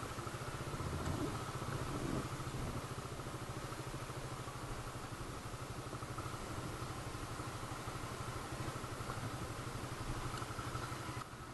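Suzuki Raider 150's single-cylinder four-stroke engine running steadily as the motorcycle is ridden slowly and brought to a stop. It drops abruptly quieter shortly before the end.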